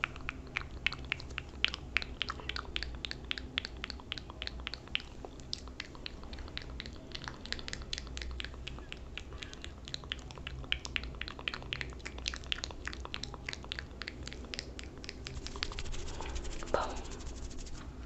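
Close-miked ASMR trigger sounds: a dense, uneven run of soft crackling clicks from hands and fingers moving right at the microphone, over a steady low hum. A short rising tone sounds near the end.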